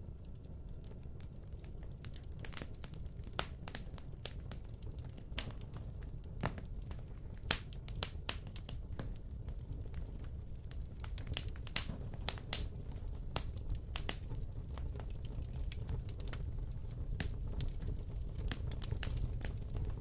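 Fire burning in a fireplace, crackling and popping at irregular moments over a low steady rumble of flames, with a few louder pops near the middle.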